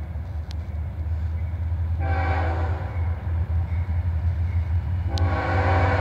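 CSX diesel locomotive's air horn sounding as the train approaches: one blast about two seconds in that fades away, then a second, louder blast starting near the end. Underneath is a low rumble that grows steadily louder.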